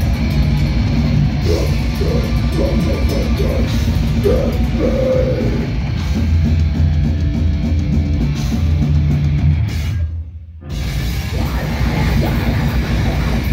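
Live heavy metal band playing loud: distorted electric guitar, bass guitar and drums. About ten seconds in the band stops dead for about half a second, then crashes back in together.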